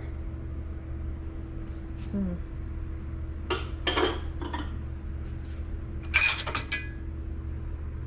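Glassware clinking against other dishes and the dishwasher's wire rack as pieces are lifted out and set back. There are two bursts of clatter, and the louder second one rings like struck glass. A steady low hum runs underneath.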